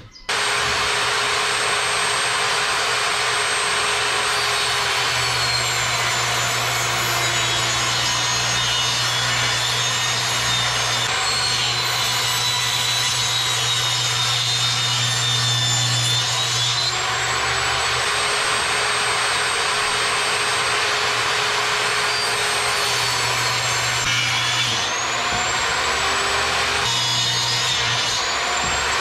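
Electric circular saw running and cutting phenolic board, a loud steady whine and rasp of blade in the board, changing abruptly a few times between cuts.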